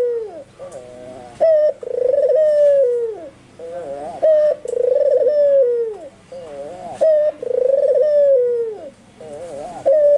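White albino puter (domestic ringneck dove) cooing over and over, about four calls, each a short note followed by a long rolling coo that drops in pitch at the end, a couple of seconds apart.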